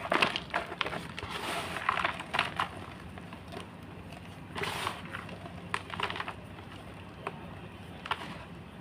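Gym chalk being crunched and crushed: irregular bursts of dry crackling crunches with pauses between them.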